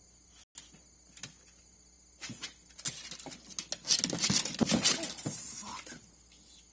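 A few footsteps on Azek composite deck boards, then a person slipping and falling onto the deck: a dense clatter of thuds and knocks lasting about a second, a little past four seconds in, the loudest part.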